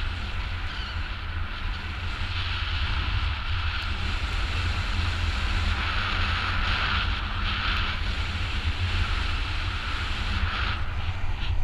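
Wind rushing over a GoPro HERO4 action camera's microphone in paraglider flight: a steady low rumble under a hiss that swells twice, about six seconds in and again near the end.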